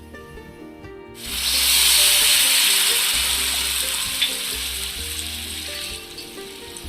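Hot pan sizzling loudly, starting suddenly about a second in and slowly dying down.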